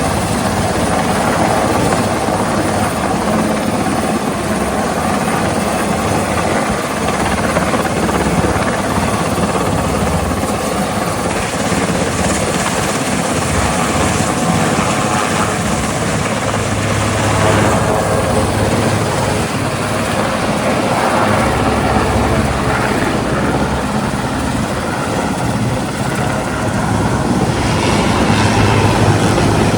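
Helicopter flying overhead with a steady rotor and engine noise that swells a little about twelve seconds in and again near the end.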